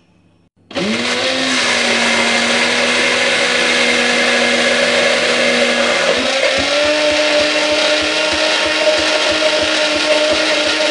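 Hand-held immersion blender switching on about a second in and running steadily in a tall plastic beaker, emulsifying egg, salt and sunflower oil into mayonnaise. Its motor hum steps up slightly in pitch about six seconds in.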